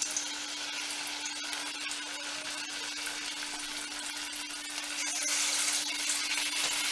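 Thavala vadai batter deep-frying in hot oil in a steel kadai: a steady sizzle full of fine crackles, getting louder about five seconds in as a second ladleful of batter goes into the oil.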